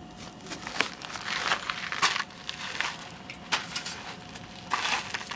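Footsteps crunching on loose gravel: a string of irregular steps.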